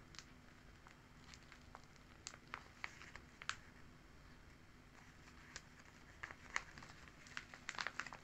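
Faint paper crinkles and light ticks as the pages of a handmade paper sticker book are handled and turned, in scattered clusters rather than a steady sound.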